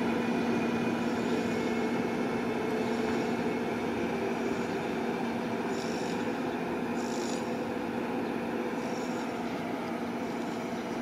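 Freight train of lorry semi-trailer wagons, hauled by an ÖBB Taurus electric locomotive, rolling steadily past with a constant low hum. The noise fades slowly as the train moves on, and a couple of brief high squeaks come near the middle.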